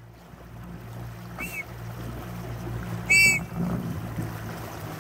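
Short blasts on a red plastic safety whistle: a faint short toot about a second and a half in, then a loud, sharp blast about three seconds in. A steady low hum runs underneath.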